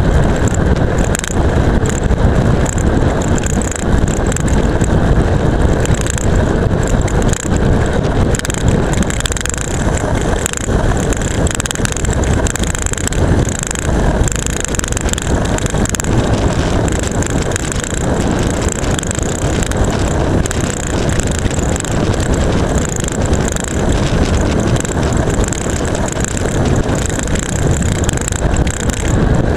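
Seatpost-mounted camera rattling hard against its mount on a road bike coasting downhill, many quick knocks over a steady rush of wind and tyre noise on the asphalt.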